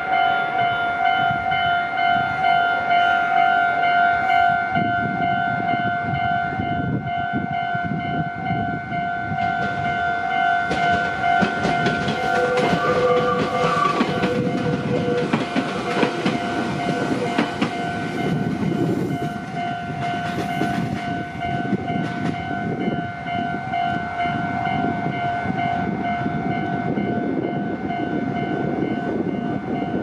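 Japanese level-crossing alarm ringing steadily in its repeating two-tone pattern, signalling a train at the crossing. A Meitetsu electric train passes through from about ten seconds in until about twenty-two seconds, with rumbling and clattering wheels on the rails.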